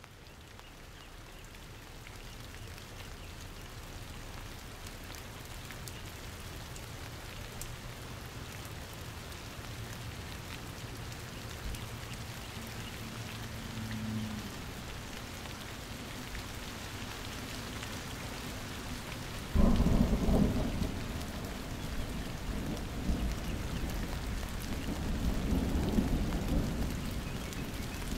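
Steady rain falling, fading in at the start. About two-thirds of the way in, a sudden loud crack of thunder breaks in and rolls on as rumbling thunder in waves until near the end.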